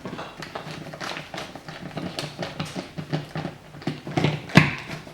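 Screwdriver driving a screw by hand into a wall anchor, with a run of irregular clicking and scraping strokes and one louder knock about four and a half seconds in.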